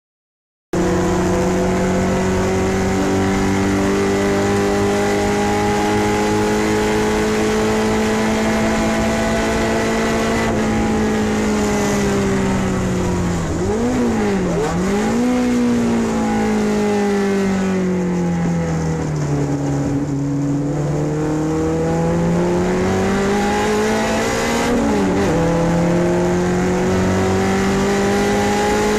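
Ford Pinto vintage race car's four-cylinder engine heard from inside the cockpit under racing load, holding steady high revs. About halfway the revs fall, with two quick throttle blips on downshifts. The revs drop to their lowest about two-thirds through, then climb again as it accelerates, with one more blip late on.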